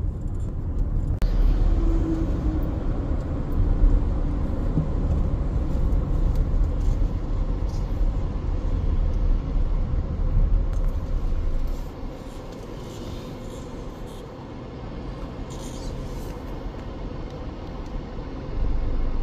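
Road and engine noise of a moving car heard from inside its cabin, a steady low rumble that drops about two-thirds of the way through as the car slows and comes to a stop, leaving a quieter idling hum.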